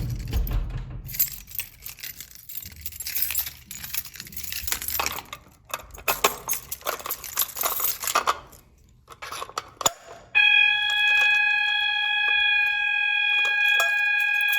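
Clattering and rustling handling noise, then about ten seconds in a System Sensor MASS fire alarm horn starts abruptly. It sounds a steady, unbroken buzzy tone.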